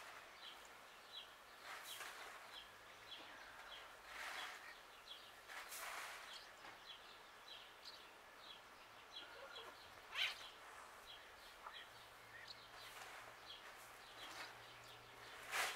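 A small bird chirping over and over, a short high note about twice a second, faint. A couple of brief, sharper sounds stand out, about ten seconds in and near the end.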